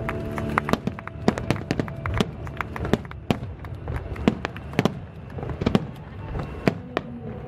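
Aerial fireworks shells bursting in rapid, irregular succession, several sharp bangs a second.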